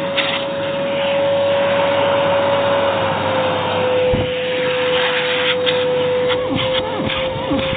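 AEG Airmax AMM6216 2100W vacuum cleaner running, a steady motor whine over loud airflow noise, the whine dropping slightly in pitch about three seconds in. Scattered clicks and knocks come in the second half.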